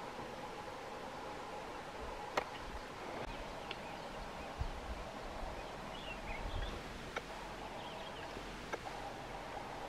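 Bush ambience: a steady insect drone with a few faint bird chirps in the second half. There is a sharp click a couple of seconds in and some soft low thumps.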